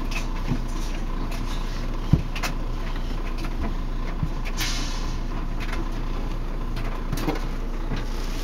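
Scattered knocks and bumps from a toddler moving about inside a washing machine drum, with one sharper thump about two seconds in, over a steady low hum.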